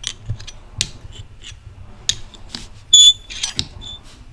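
Small clicks and taps of parts being handled, then about three seconds in a short, loud, high-pitched electronic beep, followed by a fainter second beep.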